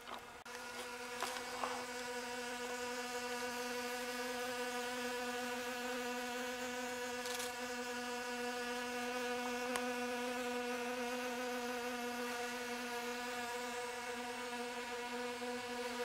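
Honeybees buzzing around pumpkin flowers: a steady, even drone of wingbeats, with a few light clicks.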